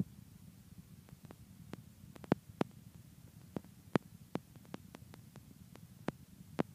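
Irregular sharp taps and clicks, about a dozen, from hands meeting and brushing while signing in American Sign Language, over a low steady hum. The strongest taps come a little over two seconds in and at about four seconds.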